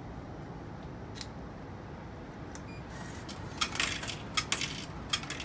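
Small metal objects clinking: steady low background noise, then a quick irregular run of sharp, bright clinks starting a little past halfway.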